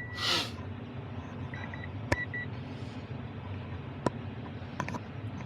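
A car idling with a steady low hum, with a brief rushing hiss at the start. About a second and a half in comes a short run of high electronic chime beeps, and a few sharp clicks follow later.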